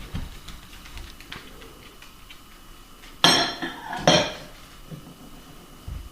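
Dishes clattering in a dishwasher: two loud, ringing clinks about a second apart, around the middle, with a few faint knocks between.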